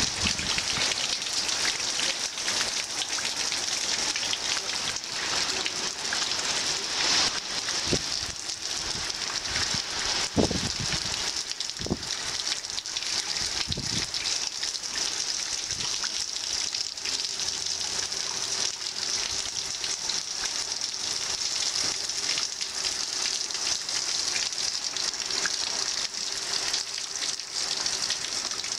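Heavy rain falling steadily, pattering on puddles, plants and wet ground, with a few dull knocks about ten to fourteen seconds in.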